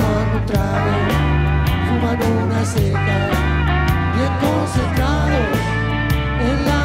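Live rock band playing electric guitars, bass and drum kit. A lead melody bends and slides in pitch over a steady drum beat.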